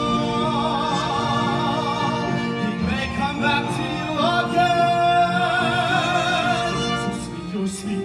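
Male singer holding long notes with vibrato over instrumental accompaniment: one held note at the start, a short break about three seconds in, then another long held note from about four seconds in to nearly seven.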